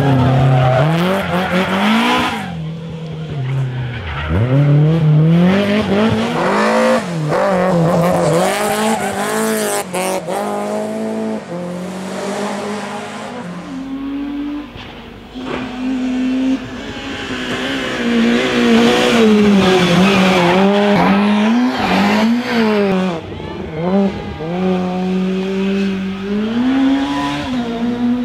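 Rally cars driven hard on a tarmac special stage, engines revving up and down through quick gear changes and braking, with some tyre squeal.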